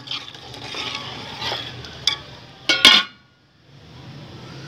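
A metal ladle clinks against a large aluminium cooking pot, then the aluminium lid is set down on the pot with two loud ringing clanks just before three seconds in.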